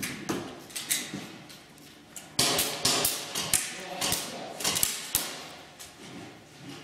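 Airsoft guns firing single shots in an irregular string of sharp cracks and smacks, with BBs striking the barricades; the shots are thickest and loudest from about two to five seconds in.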